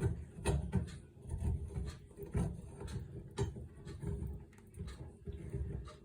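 A threaded adapter being screwed by hand onto a kitchen tap: repeated rubbing, knocking and clicking of the fitting as it is turned, a few times a second.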